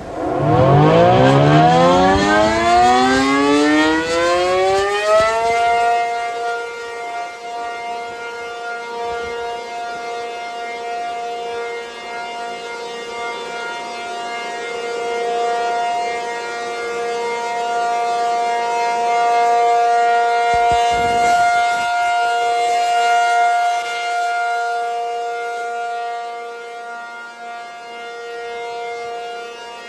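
ACA P-50 outdoor warning siren sounding in a test: it winds up from a low growl to full pitch over about five seconds, then holds a steady wail. The level slowly swells and fades as it runs.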